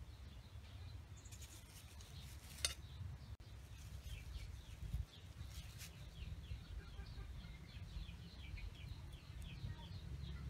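Small birds chirping over and over, short falling chirps, with a steady low rumble underneath. A few sharp snaps and rustles come in the first few seconds and again about halfway, as climbing wattle leaves are stripped from their stems by hand.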